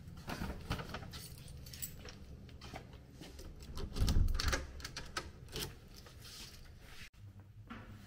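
Small objects being handled: scattered light clicks, clinks and rustles, with a louder dull thump about four seconds in.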